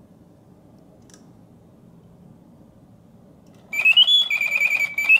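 Reuge double singing bird cage automaton: a pause in the song with only a faint low hum, then, about three and a half seconds in, the bellows-driven whistle breaks back into birdsong, a loud warbling, trilling whistle that glides up and down. The working pause is a sign that the mechanism and bellows are functioning properly.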